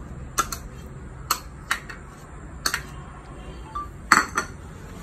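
Plastic scoop clicking and knocking against plastic bowls as food is scooped from a small bowl into a larger mixing bowl: a handful of sharp separate knocks, the loudest short cluster about four seconds in.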